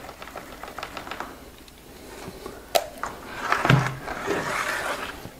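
Hands working loose scenery fibres for a model bush: a run of light rapid clicks, a sharp tap near the middle, then a rustling hiss with a dull knock.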